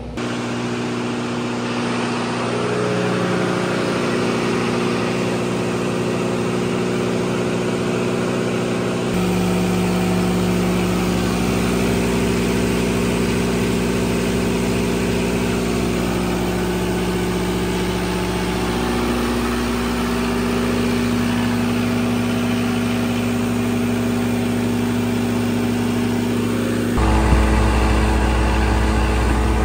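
Turbocharged 60 kW standby generator engine running steadily at full load on a load bank, a loud even drone. The sound shifts abruptly about nine seconds in and again near the end.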